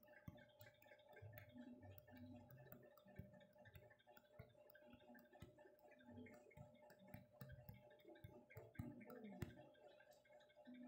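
Near silence: faint room tone with a low steady hum and scattered soft ticks.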